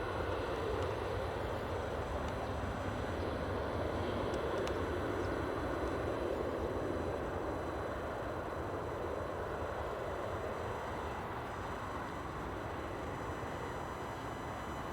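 Jet airliner engines heard from a distance, a steady rushing sound that swells slightly over the first several seconds and then slowly fades.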